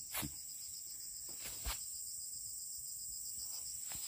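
Steady high-pitched insect chorus, with a few soft footsteps on dry grass, one just after the start and one about two seconds in.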